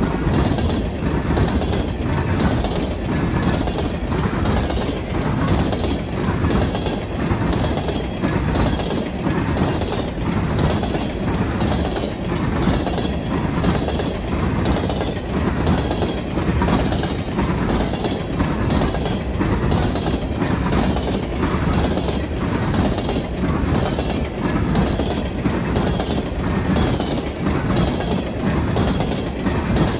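Freight train of aluminum coal hopper cars rolling past close by, the steel wheels clacking over rail joints in a steady, even rhythm.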